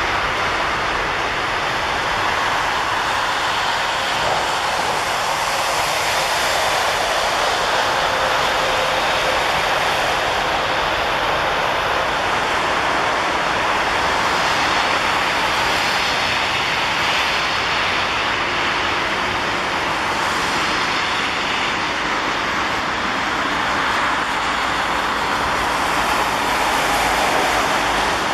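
Airliner jet engines running: a steady, even rushing noise with no distinct tones, swelling slightly near the end.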